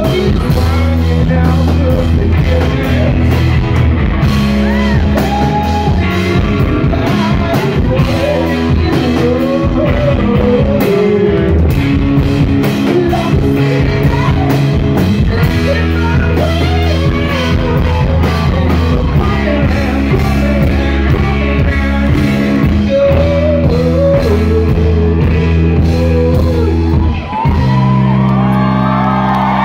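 Live rock band playing on stage in a large hall: a sung lead vocal over electric guitar, keyboard, bass and drums. About 27 seconds in the playing breaks off for a moment, and the crowd starts whooping and cheering over a held low chord.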